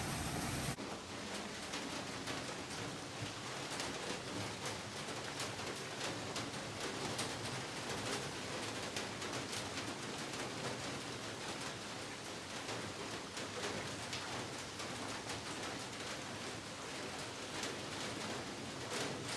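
Heavy rain falling steadily, many separate drops ticking on a surface. A low rumble cuts off abruptly just under a second in.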